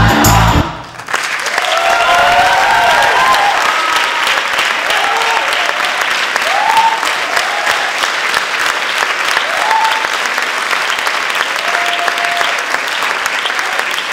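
A song with a steady beat stops about a second in, and an audience breaks into sustained applause, with scattered cheers and whoops over the clapping.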